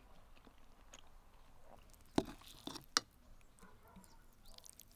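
Close-miked chewing of a mouthful of braised sauerkraut and meat, with soft mouth noises. About halfway through, a metal fork clicks sharply against a glazed clay bowl, twice.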